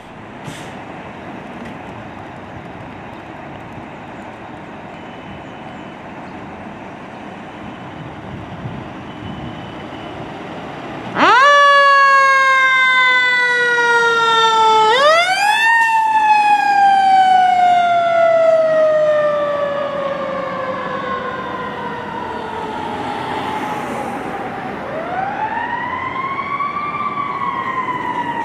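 Siren of a 2020 Ferrara fire engine responding to a call. After a steady low hum, the siren cuts in about eleven seconds in with a sudden jump in pitch, slides slowly down, whoops up again about four seconds later and winds down over several seconds. Near the end it turns to a rising-and-falling wail.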